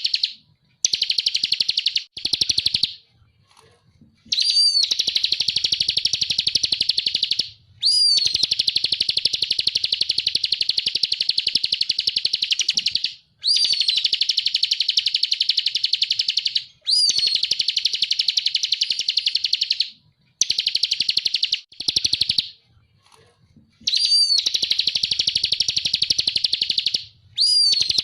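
Bar-winged prinia (ciblek kristal) singing: long, very rapid buzzy trills lasting several seconds each. Each trill opens with a high falling note, and short pauses separate the phrases.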